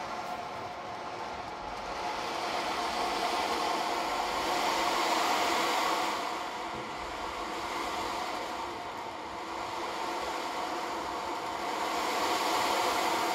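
Ocean drum: beads rolling across the inside of a frame drum as it is tilted, making a surf-like rush that swells and fades in slow waves every few seconds.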